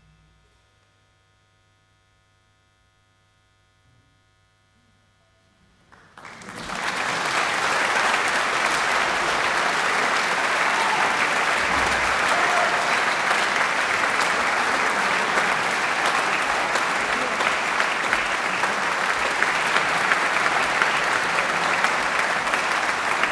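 About six seconds of near silence, then a concert audience breaks into applause, which builds within a second or two and then holds steady.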